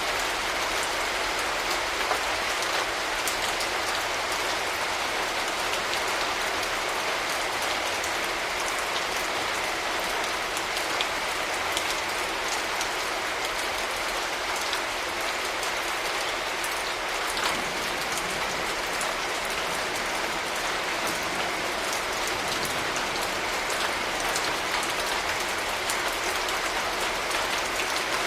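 Steady rain falling, a dense even hiss with many individual drops ticking on surfaces.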